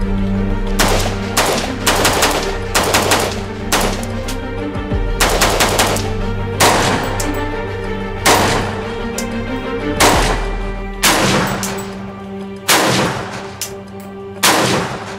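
AK-pattern rifle gunshots in quick doubles and triples, then single shots spaced a second or more apart, over background music with a steady beat.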